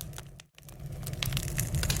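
Wood fire crackling, with scattered sharp pops over a steady low rumble of the flames. About half a second in the sound dips briefly to near silence, then fades back up and the crackling resumes.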